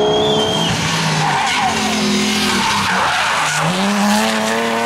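BMW rally car's engine revving hard while its tyres skid and squeal on tarmac through a hairpin. The engine note dips and then climbs again about three and a half seconds in.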